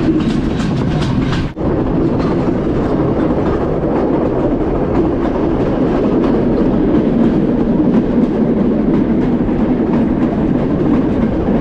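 Passenger train running along the track, heard from the carriage window: a loud, steady rumble and rattle of the wheels on the rails. Quick clicks come through in the first second or so, and the sound breaks off for a moment about a second and a half in.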